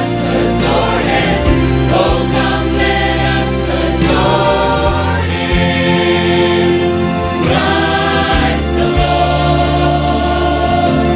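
Choir singing with instrumental accompaniment: sustained sung notes over steady low chords.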